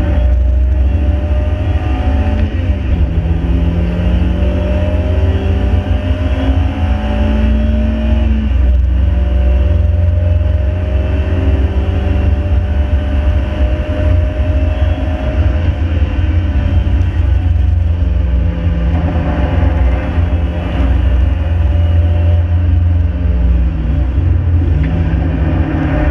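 Ford Fiesta's 1.7 Puma four-cylinder engine running hard under a heavy low rumble of road and wind noise. Its note climbs slowly and drops sharply three times, about three, eight and seventeen seconds in.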